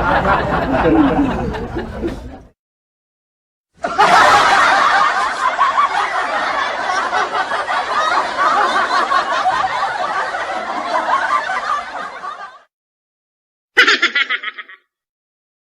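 A string of separate laugh sound effects with brief silences between them: one laugh trails off, a long laugh runs for about eight seconds, then a short snickering laugh of quick pulses.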